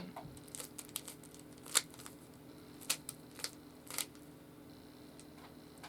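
Rubik's Cube being twisted by hand: irregular sharp plastic clicks as its layers are turned, the loudest a little under two seconds in.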